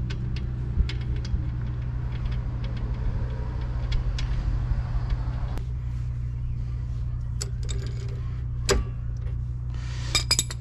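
Steel hand tools clicking and clinking as a wrench works the spindle nut on a VW Beetle's front hub and tools are laid on concrete: scattered sharp clicks, with a quick cluster near the end. A steady low hum runs underneath.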